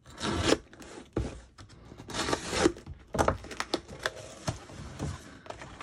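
A box being opened by hand: irregular bursts of rustling, crinkling and scraping of the packing, with a few sharp clicks.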